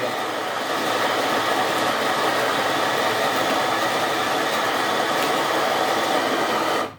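Electric coffee grinder running steadily as it grinds espresso beans at a newly adjusted grind setting, then switching off suddenly near the end.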